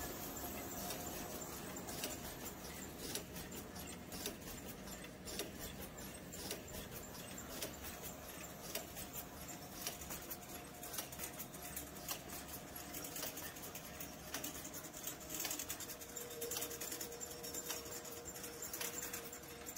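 Gelgoog spring roll production line running: a steady machine hum and whine, with a dense, irregular clatter of small clicks and ticks from its moving parts. The whine drops a little in pitch near the end.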